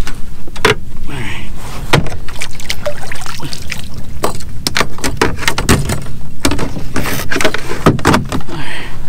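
Irregular plastic clatter and knocks of gear being handled in a kayak as a fish measuring board is stowed, over a low rumble.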